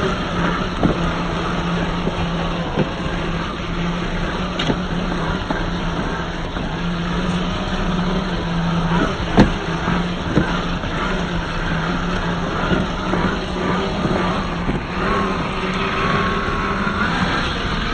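Traxxas TRX-4 RC crawler's electric motor and geared drivetrain whining steadily as it drives over rough ground, with scattered clicks and knocks from the tyres and chassis and one sharp knock about halfway through.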